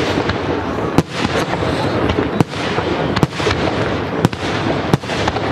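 Fireworks display: loud shell bursts about once a second over a constant dense noise of further firing.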